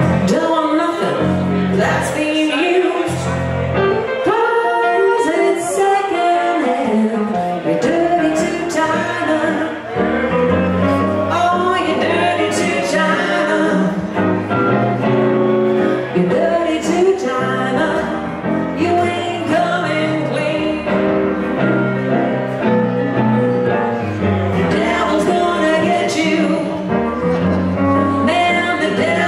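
Live blues band playing: hollow-body archtop electric guitar and keyboard over a steady bass line, with singing.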